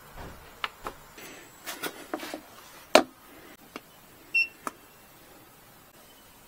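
Hard plastic clicks and knocks as a smartphone is handled and set down on the wireless charging pad of a BougeRV Flash300 portable power station; the loudest is a sharp knock about three seconds in. About a second and a half later the pad gives a single short high beep, its signal that a phone has been placed for charging.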